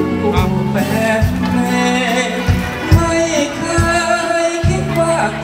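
Background music with a singing voice over bass and drum hits.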